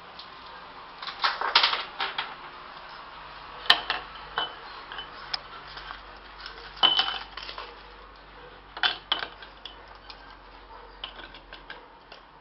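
Ice cubes being knocked out of a plastic ice-cube tray into a glass: irregular clicks, cracks and clinks, the loudest about four and seven seconds in.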